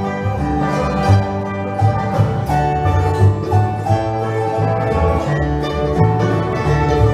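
Bluegrass band playing live, with acoustic guitar, mandolin and upright bass.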